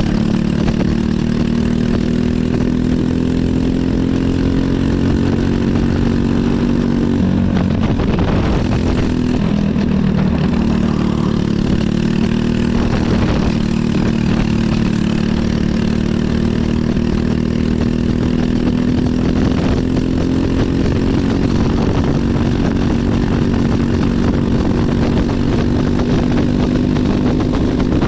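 Briggs & Stratton LO206 kart's single-cylinder four-stroke engine running hard on track. The revs climb, fall off about seven to ten seconds in, then climb again through the rest of the lap.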